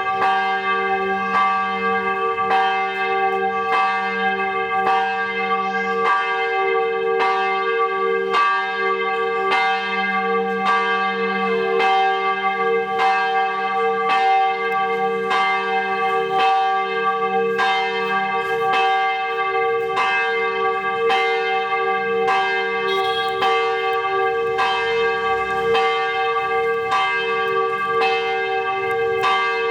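Church bell ringing, struck over and over at a steady quick pace, a little more than once a second, its tones ringing on between strikes.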